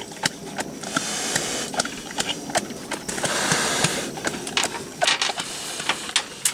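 A wild pig moving inside a wire-panel cage trap: irregular clicks and rattles of the wire mesh, with two longer stretches of hissing noise.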